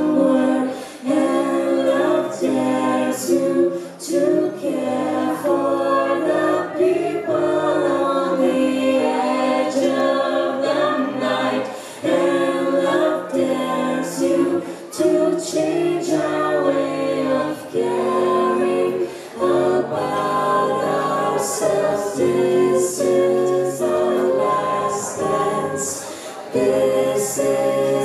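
A cappella group of six mixed voices, women and men, singing close harmony through microphones and a PA, with no instruments. Crisp sibilant consonants come through throughout.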